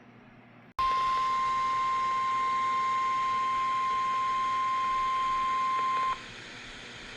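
NOAA Weather Radio 1050 Hz warning alarm tone: one steady, high, pure tone lasting about five seconds. It starts abruptly just under a second in and cuts off suddenly, heard over radio reception that leaves a steady hiss behind it. The tone signals a warning broadcast, here a severe thunderstorm warning being continued.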